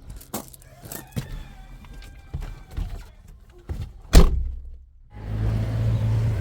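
Scattered light knocks and clicks, then one loud thunk about four seconds in. After a moment's silence a steady low engine hum begins, as of a car running.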